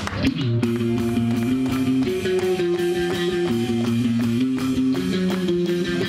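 A live rock band plays with electric guitar and bass guitar holding sustained chords over a steady drum beat. A louder crashing passage breaks off just as this section begins.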